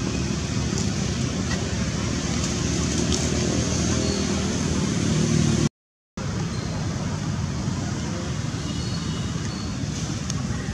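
Steady low rumble of outdoor background noise, cut off to silence for about half a second near the middle.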